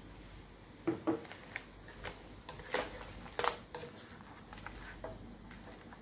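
Black spatula knocking and scraping against a wok while stir-frying crab and seafood in sauce: a few short scattered clacks, the loudest about three and a half seconds in.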